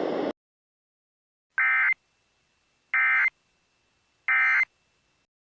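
Emergency Alert System end-of-message code: three short, identical bursts of screechy digital data tones, a little over a second apart, marking the end of the alert. A moment of radio hiss cuts off just before them.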